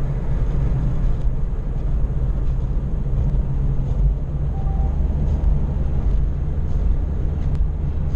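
Steady low rumble of a car cruising at motorway speed, heard from inside the cabin: engine and tyre-on-road noise.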